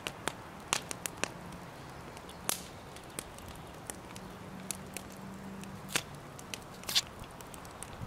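Scattered sharp crackles and clicks at irregular intervals, the loudest about a second in, halfway through and near the end, with a faint low hum for a couple of seconds in the middle.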